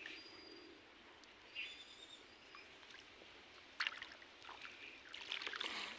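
Faint splashing and trickling of pond water, with a sharper splash about four seconds in and more splashing in the last second. A few short, high bird chirps come in the first two seconds.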